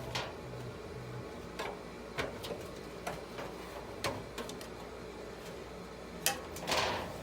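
Irregular light clicks and scrapes on sheet metal inside a furnace, with one louder rasping scrape near the end, as a scared baby raccoon moves about in it.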